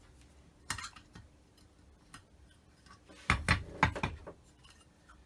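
Rubber hammer knocking on a rusty Holley carburettor's parts to shake loose rust and crud: two light knocks early, then a quick cluster of heavier thudding knocks a little past the middle.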